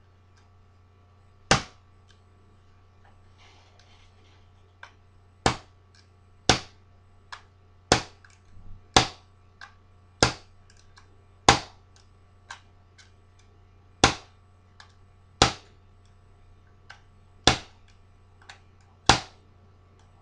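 Homemade WR5 bump key being struck repeatedly in a deadbolt lock cylinder to bump the pins: a string of sharp taps, about one every second or two, some hard and some light.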